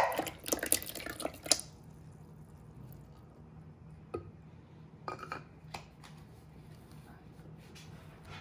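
A soft lump of cheese drops into a plastic bowl of milk with a loud splash, followed by about a second and a half of spattering. A few small drips and taps follow a few seconds later.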